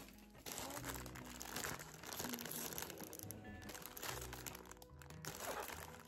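Plastic frozen-food packaging crinkling and rustling as the bags are taken out of a shopping basket and handled, over background music.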